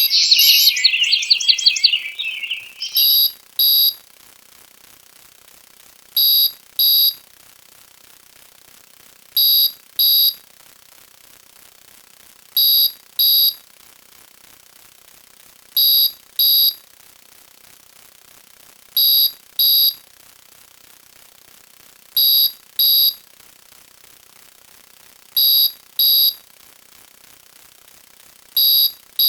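Electronic alarm sound effect: a shrill, rapidly pulsing ring for about two seconds, then a high-pitched double beep that repeats every three seconds or so.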